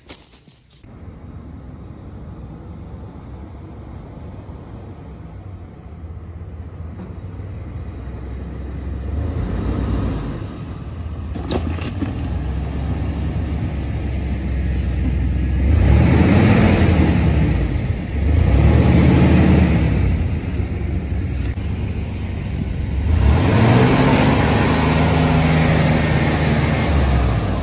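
Chevrolet OBS W/T 1500 pickup engine running, revved up and let back down several times, with a longer rev held near the end. There is one sharp click partway through.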